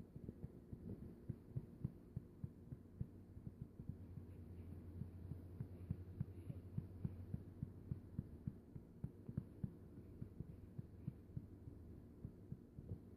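A hand patting a baby's back to bring up a burp: soft low thumps in a quick, even rhythm.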